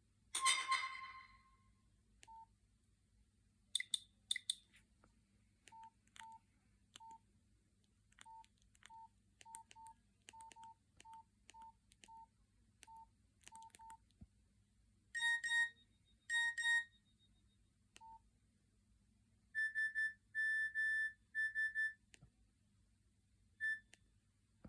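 Nokia 6136 mobile phone's electronic tones: a short chime at the start, then a string of quiet short keypad beeps at uneven intervals, two louder beeps a little past the middle, and a quick run of short beeps soon after.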